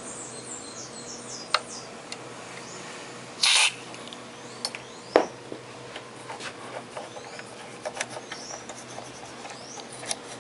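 Small birds chirping in the background while someone works at an amplifier circuit board. About three and a half seconds in there is a short burst of hiss, and a little after five seconds a sharp click with a brief ring, among scattered small clicks.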